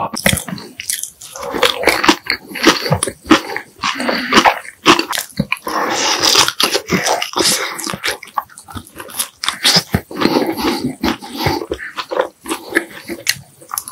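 Close-miked eating: irregular biting and chewing with wet mouth clicks.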